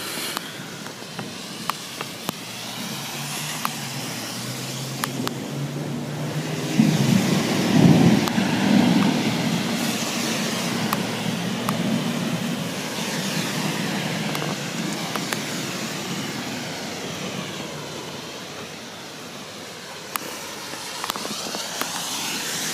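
Steady heavy rain with scattered close taps of drops, under a long low roll of thunder that builds a few seconds in, is loudest about a third of the way through, and fades away slowly.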